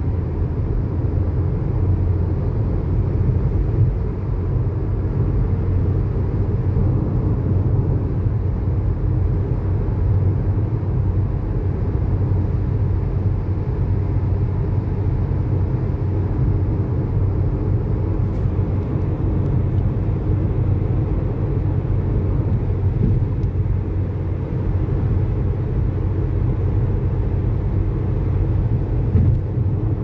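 Steady low rumble of a car driving along the road: engine and tyre noise.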